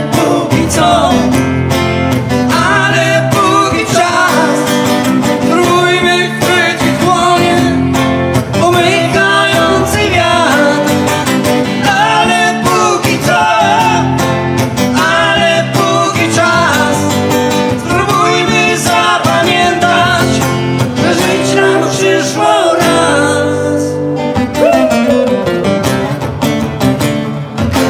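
Live song: a man singing into a microphone over a strummed, amplified acoustic guitar, played through the PA.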